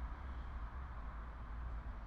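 Steady low hum with an even faint hiss underneath, unchanging and with no distinct events.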